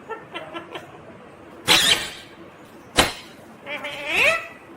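Indian ringneck parrot calling: a few short chattering notes, then a loud harsh squawk a little under two seconds in, a brief sharp sound at about three seconds, and a pitched call that slides upward near the end.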